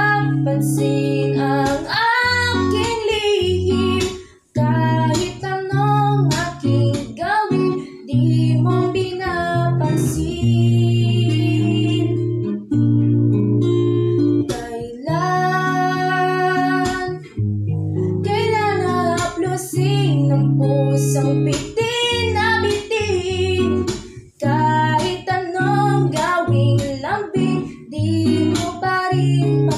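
A girl singing a song solo, with held, sliding notes, over guitar accompaniment.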